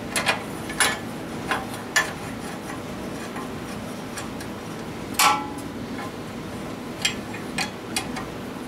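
Irregular metal clicks and clinks of a small socket and ratchet working a bolt on a small engine, with one louder clank about five seconds in.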